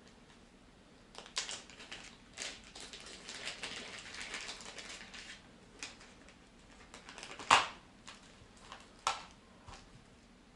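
Plastic packaging rustling and small hard objects clicking and knocking on a desk as small parts are unwrapped by hand. A dense stretch of crinkling comes in the first half, then a few separate sharp clicks, the loudest about two-thirds of the way through.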